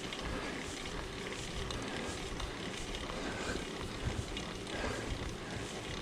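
Mountain bike riding along a dirt and gravel trail: a steady rushing noise of the tyres rolling over the ground, with scattered small knocks and rattles from the bike.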